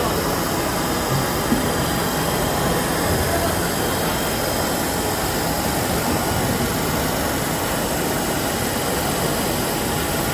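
Steady machine noise with a hiss of air from an automatic die-cutting machine's sheet feeder and its suction system, with no distinct strokes or impacts.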